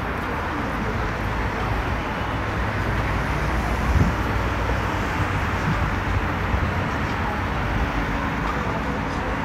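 Steady road-traffic noise in a city street ambience, with a single short thump about four seconds in.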